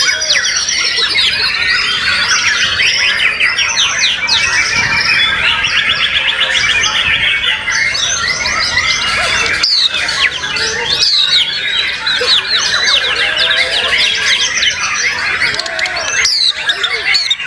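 Many white-rumped shamas singing at once, a dense, unbroken chorus of rapid trills, sweeping whistles and chattering phrases with no pause.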